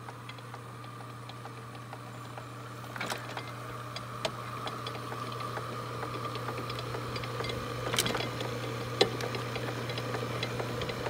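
Early-1900s Deering grain reaper running on a stand, driven by a small motor: a steady hum under continuous clicking and clattering of its gears and rake mechanism, with every rake paddle sweeping across the table. A few louder clanks stand out about three, eight and nine seconds in, and the clatter grows louder throughout.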